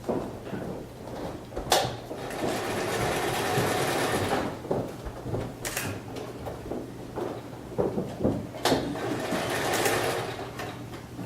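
Sewing machine running in two bursts of about two seconds each, each starting with a sharp click, with small knocks and handling noises between them.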